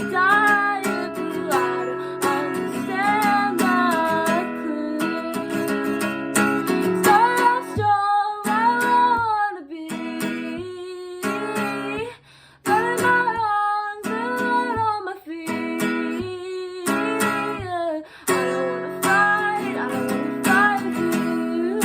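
Acoustic guitar strummed with a woman's voice singing a melody over it, pausing briefly about halfway through.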